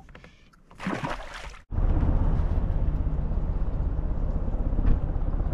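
A brief splash as a small bass is let back into the water, then, after a sudden cut, a fire helicopter's rotor beating loud and low with a rapid, even pulse.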